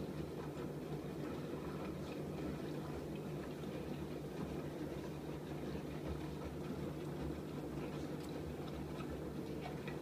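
AEG Öko-Lavamat 88840 front-loading washing machine turning its drum through water during the fabric-softener rinse: a steady motor hum with water sloshing and a few faint ticks.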